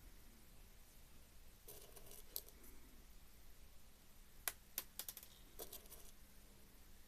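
Faint small clicks and light rustling of glass beads being handled and threaded onto monofilament line, with a quick run of sharper clicks about four and a half to six seconds in.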